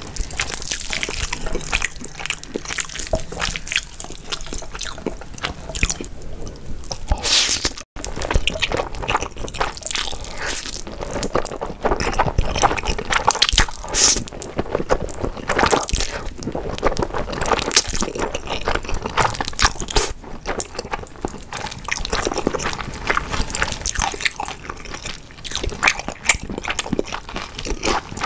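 Close-miked eating sounds: slurping and chewing of sauce-coated Buldak spicy stir-fried instant noodles, with wet, sticky mouth smacks and clicks. The sound breaks off for an instant about eight seconds in.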